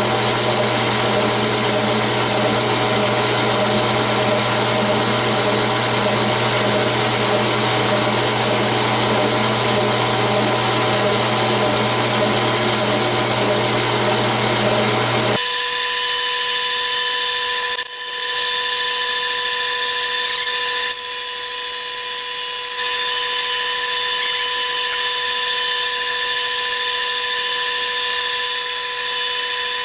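Metal lathe turning a titanium bar, the machine running steadily under cut. About halfway the sound changes abruptly: the low hum drops away, leaving a thinner set of steady higher tones.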